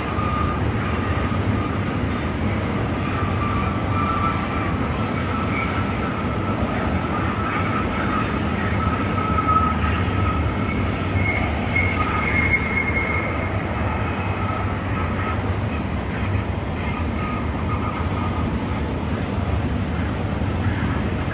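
Double-stack intermodal freight cars rolling steadily through a curve: a continuous rumble of wheels on rail with a high, steady wheel squeal that fades in the last few seconds. A second, higher squeal joins briefly about halfway through.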